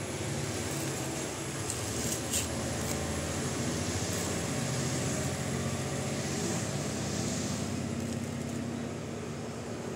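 Coconut husk being pulled apart by hand, with a few short dry crackles of fibre snapping around two seconds in, over a steady low hum of background noise.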